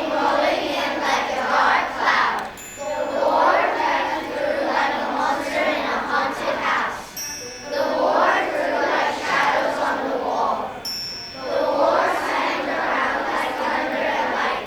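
A group of children reciting a poem together in unison, in phrases of about two seconds with short pauses between them. A few brief, faint high chiming tones sound now and then.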